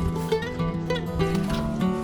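Background music: instrumental with plucked guitar-like notes over a steady bass line.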